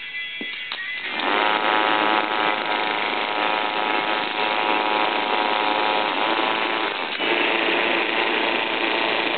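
K'nex-built four-port siren starting up about a second in, its motor-driven rotor sounding a steady pitched tone over dense mechanical noise. The tone shifts about seven seconds in.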